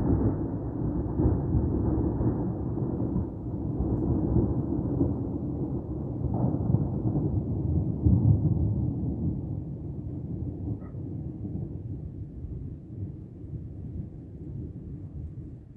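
A long roll of thunder, a deep rumble that swells again about eight seconds in and then slowly dies away.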